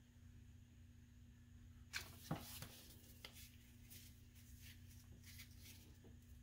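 Quiet handling sounds over a faint steady hum. About two seconds in, a hot glue gun is set down on a stone countertop with a short clatter of a few knocks. Soft paper rustling follows as a paper envelope is handled and folded.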